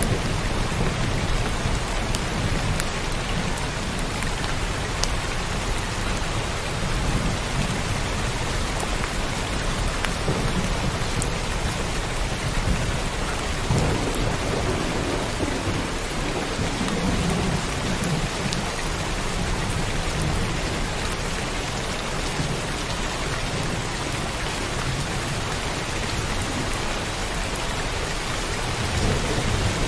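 Heavy rain falling steadily, with low rolling thunder rumbling underneath and swelling a few times.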